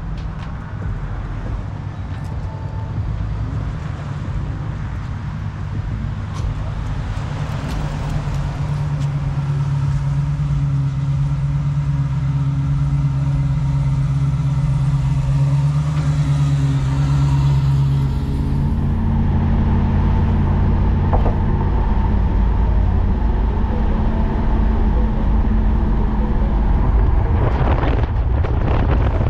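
Car driving with steady engine and road noise; the engine note shifts and the hiss above it thins out about two-thirds of the way through.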